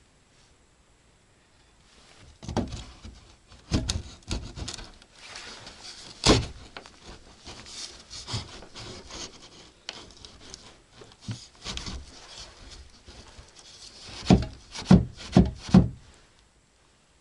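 Wood being scraped and rubbed, with scattered knocks and a quick run of about five sharp knocks near the end: hand work on a freshly cut wooden ventilation opening.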